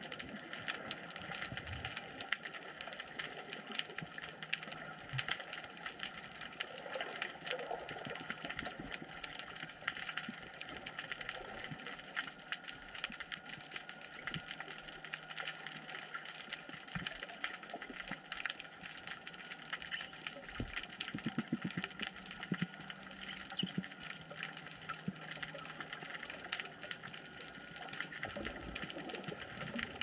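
Underwater ambient sound as heard by a submerged camera: a steady dense crackle of countless tiny clicks over a hiss, with a few low knocks about two-thirds of the way through.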